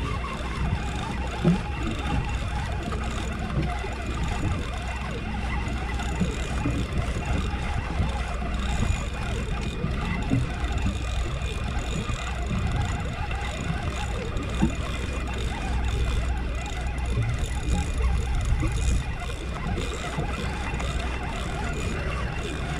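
Sportfishing boat's engine running with a steady low drone and a faint high whine, over a general haze of wind and water noise, with a few light knocks scattered through.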